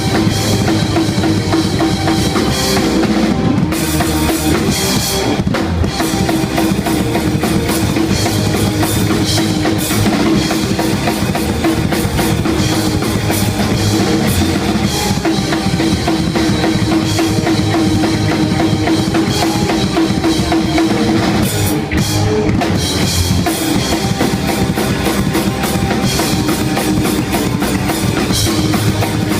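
Hardcore punk drumming on a full drum kit, with kick, snare and cymbals, played under the rest of the band in a loud, continuous song. There are brief stops a few seconds in and again about two-thirds of the way through.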